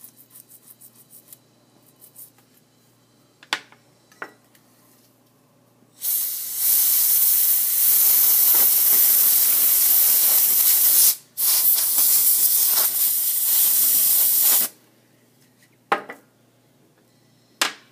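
Can of compressed air duster sprayed through its straw nozzle to blow a small phone part dry: a loud steady hiss lasting about five seconds, a brief break, then about three seconds more. A few light taps come before and after it.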